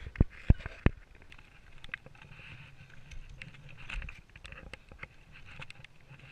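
Trekking poles and boots on rock: a few sharp clacks of pole tips striking rock in the first second, then quieter scraping and crunching steps on loose stones with scattered small ticks.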